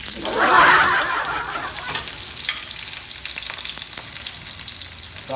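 Sliced onion, ginger and garlic sizzling in hot oil in a stainless steel wok. The sizzle swells sharply about half a second in, then settles to a steady hiss with a few light clicks.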